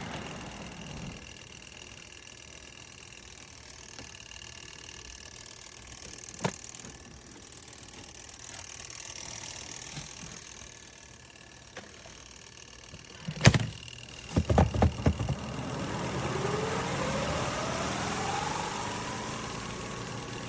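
Small twin-tub washing machine's motor humming. About two-thirds of the way in there are a few loud knocks, then a motor whine rises steadily in pitch as it speeds up.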